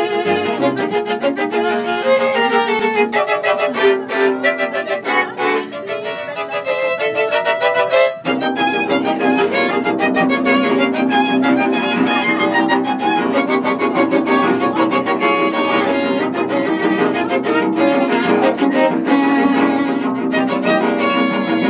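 String quartet playing classical music, violins over a cello line. There is a brief break and a fresh attack about eight seconds in.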